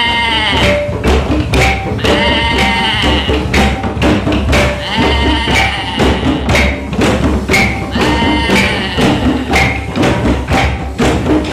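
Music with a steady knocking percussion beat and a drawn-out, bleat-like call that comes back about every three seconds.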